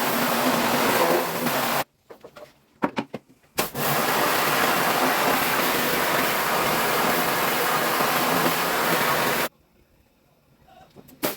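Pressure washer (jet wash) spraying with a steady hiss and motor noise, stopping abruptly twice for a second or two before starting again.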